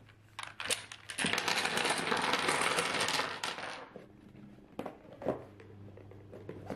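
A double-six set of dominoes tipped out of its tray onto a wooden table: a couple of clicks, then about two and a half seconds of dense clattering as the tiles spill and knock against each other, followed by a few separate knocks.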